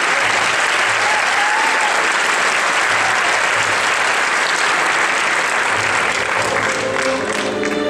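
Theatre audience applauding steadily. Orchestral music comes in near the end.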